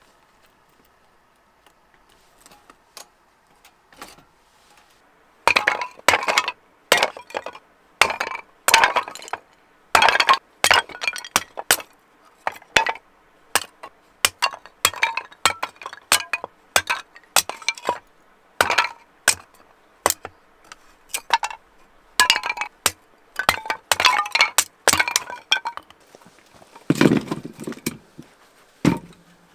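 Thin wooden boards being chopped into kindling: a long, irregular run of sharp cracks and knocks, about one or two a second, starting a few seconds in. Near the end comes a duller, heavier clunk of wood.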